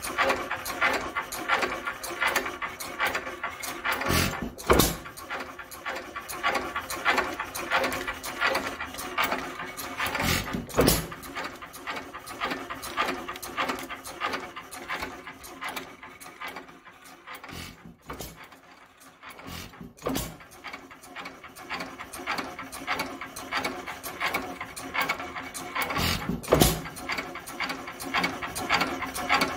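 International Harvester hit-and-miss stationary engine with buzz-coil ignition running: a steady rapid clatter of its moving parts, broken by a few sharp louder bangs several seconds apart. The clatter drops off briefly a little past halfway.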